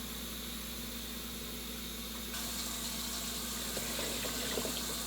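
A steady low electrical hum, then about two seconds in, water starts running from a kitchen tap, with a few light knocks of a container under it.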